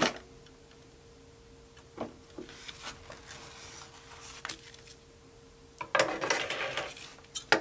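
Quiet handling at a stopped industrial walking-foot sewing machine: a few small clicks and taps over a faint steady hum, then fabric rustling and being pulled near the end.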